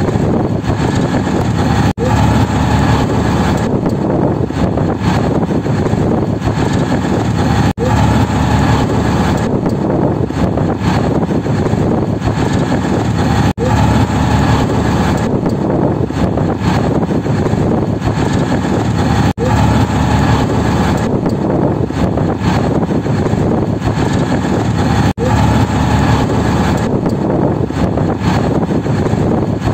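A moving auto-rickshaw heard from inside the cabin: a steady, loud drone of engine, tyre and wind noise through the open sides. The sound drops out briefly about every six seconds.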